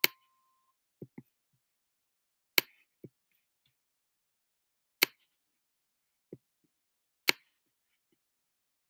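Sharp taps of a pen stylus on a writing tablet as digits are written by hand. There are four loud taps about two and a half seconds apart, with fainter ticks between them.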